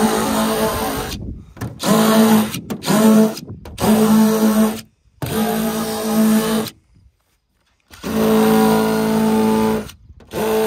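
DeWalt cordless rotary tool running in short bursts, its motor whine starting and stopping about six times, as its bit scratches lines into a car's painted hood.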